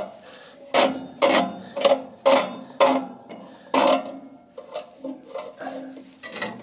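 Metal knocks and rattles as a black metal motor housing is pushed into its slot and its spring-loaded wing bolts are worked by hand. There are about six sharp knocks in the first four seconds, then lighter ticks and rubbing.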